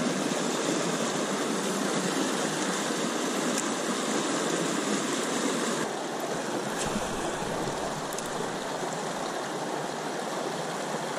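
River water rushing over rocks in a shallow rapid: a steady wash that eases a little about halfway through.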